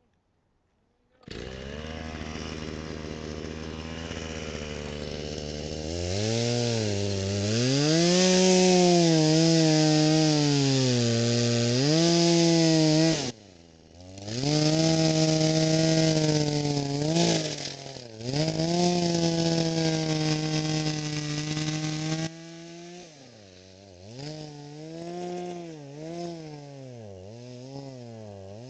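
Two-stroke chainsaw running and cutting a hole in lake ice. The engine revs up and down, with short dips about 13 and 18 seconds in, and settles lower and quieter about 22 seconds in.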